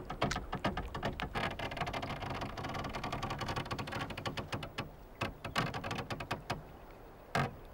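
Rapid, irregular wooden clicks and knocks from a fishing boat's wooden net-lifting gear and hull, with a hiss in the middle, thinning out and ending in two louder knocks.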